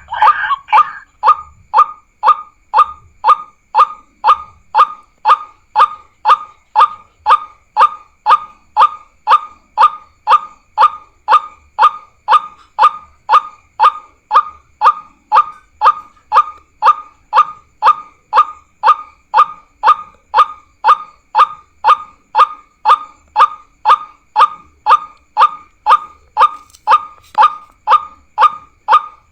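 Bird-lure recording of a geguak bird's call playing on a loop: one short, downward-sliding note repeated very evenly, about twice a second.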